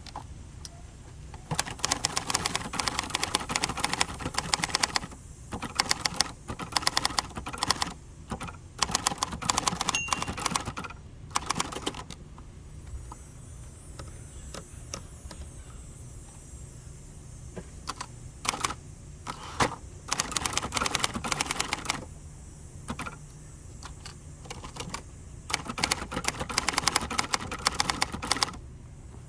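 1967 Hermes 3000 manual typewriter being typed on: runs of rapid keystroke clacks lasting a few seconds each, broken by short pauses.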